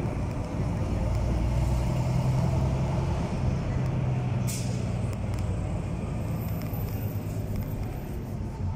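Vintage city bus's engine running as the bus drives along, heard from inside, with a short hiss of compressed air about halfway through.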